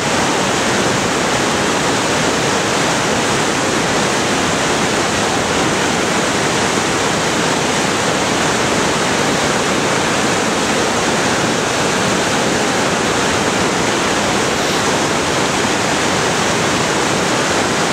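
Steady rush of whitewater churning through an artificial canoe slalom channel.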